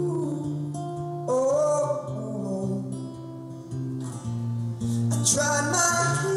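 A man singing to his own acoustic guitar, the guitar played steadily underneath; sung lines come in about a second in and again near the end.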